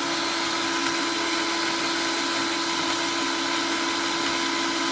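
Old electric drill powered from a car battery, its motor running at a steady speed with a constant hum and whine and no change in pitch.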